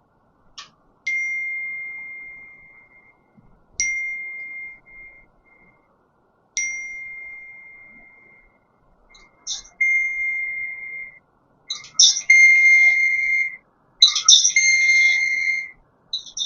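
Repeated electronic ding chimes, like notification tones: each a sharp ding whose ringing tone fades over a second or two. They come about every three seconds at first, then faster and overlapping near the end.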